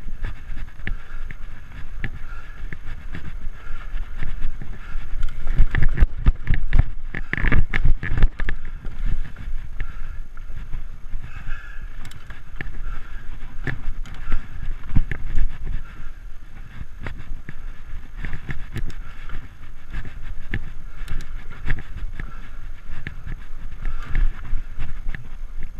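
Framed Alaskan fat-tire mountain bike riding dirt single track: a steady low rumble of tyres on the trail, with many small rattles and knocks from the bike going over bumps, heaviest about six to nine seconds in.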